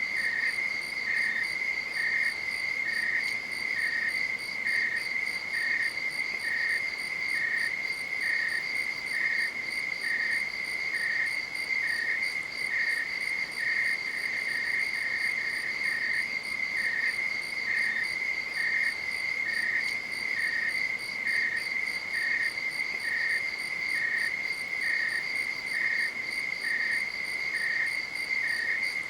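Night insects calling: one high steady trill, with a second insect chirping at a slightly lower pitch about twice a second.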